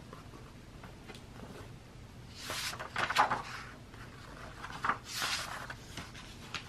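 Paper rustling as the pages of a hardcover picture book are turned and handled, in two bursts about two and a half and five seconds in.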